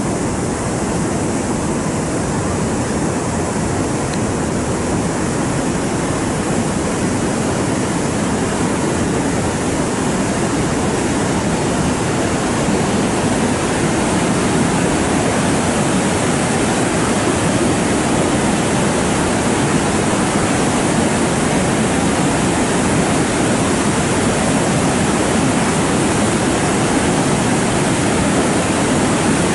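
Muddy floodwater pouring over the overflow weir of a rain-filled lake, a steady rush of water that grows slightly louder about halfway through.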